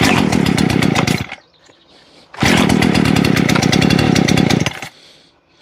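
Husqvarna 120 Mark III chainsaw's 38-cc two-stroke X-Torq engine pull-started twice: it fires and runs for about a second and then dies, then catches again for about two seconds and dies again. With the choke pushed all the way off, the cold engine won't keep running.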